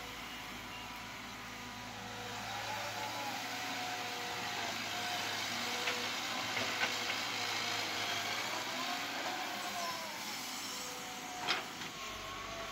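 CAT 312B hydraulic excavator working under load while digging, swinging and dumping, its diesel engine and hydraulics running steadily with a pitch that rises and falls as the arm and swing move. A few light clicks midway and one sharp knock near the end.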